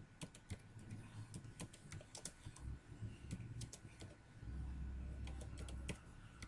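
Computer keyboard being typed on, with irregular keystroke clicks. A low hum swells for about a second and a half past the middle.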